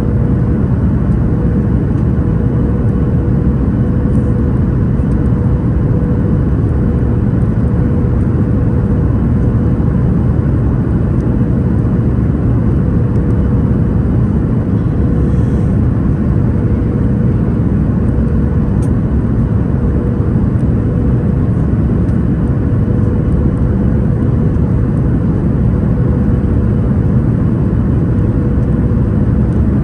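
Boeing 737 MAX 8 in flight, heard from inside the cabin: the steady, deep rumble of its CFM LEAP-1B jet engines and the rush of air over the fuselage, with a constant mid-pitched hum running through it.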